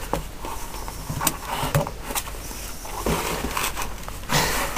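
Hands handling a cardboard Kindle box, trying to work its tight lid off: a few light knocks and taps as it is gripped and tilted, and a louder scrape near the end.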